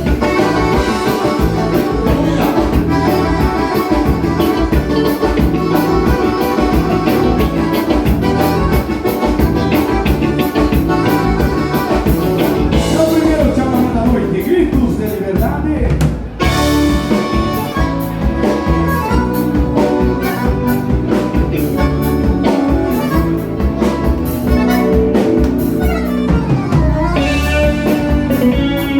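Live gaúcho dance band playing a vanera, the southern Brazilian dance rhythm, with a steady beat on drums and bass. The music drops out for a moment about sixteen seconds in, then carries on.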